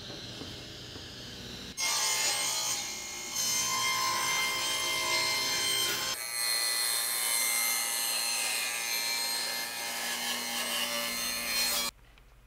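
Table saw cutting a sheet of birch plywood: the blade's high whine and the rasp of the cut. It starts suddenly about two seconds in and stops abruptly near the end.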